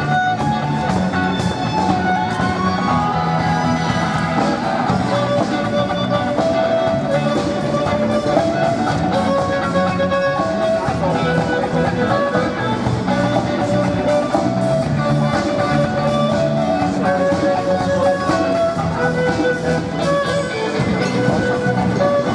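A live band plays a rock-style tune, with a violin carrying a melody of long held notes over guitar chords.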